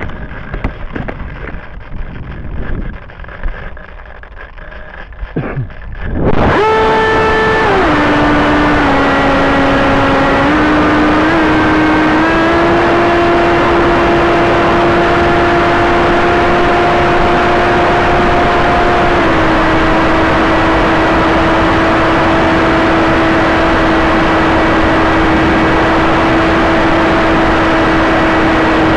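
Electric brushless motor (stock 2205 2350kv) and propeller of a small FPV flying wing, heard from its onboard camera. About six seconds in the motor is throttled up into a loud steady whine that starts high, drops within a couple of seconds, then steps up slightly and holds. Before that, irregular wind noise and rattling.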